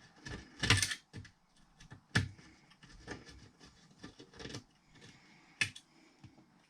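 Sharp knocks and clicks of a car radio head unit being handled and turned over on a bench, the loudest cluster just before a second in and single knocks around two and five and a half seconds in.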